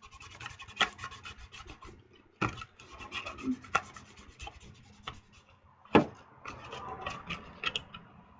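Cardstock being handled, glued and folded by hand: paper rubbing and rustling with scattered sharp clicks, and a few knocks against the work surface, the loudest about two and a half and six seconds in.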